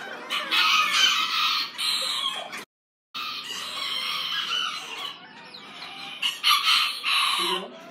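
Miniature bantam roosters crowing and clucking, in long calls. The sound cuts out for a moment about three seconds in.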